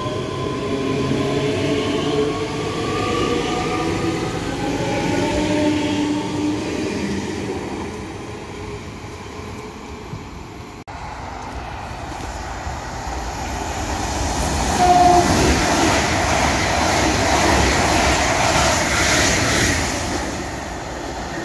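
ScotRail electric multiple-unit trains passing through a station. First a train's motor whine falls in pitch as it runs past and away. Then another train's rumble builds and grows louder, with a short high tone partway through.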